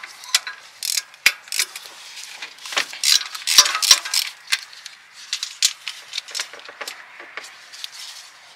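Hand socket ratchet clicking, with metal-on-metal clinks of the socket and nuts, as exhaust manifold nuts are worked loose. Irregular sharp clicks, with a quicker run of ratchet clicks about two-thirds of the way through.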